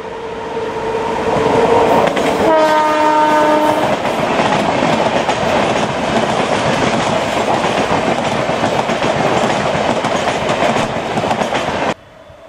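Electric locomotive's horn: a long blast, then a lower, fuller note about two and a half seconds in. Then an express train rushes past with a steady clatter of wheels over the rails, cutting off suddenly near the end.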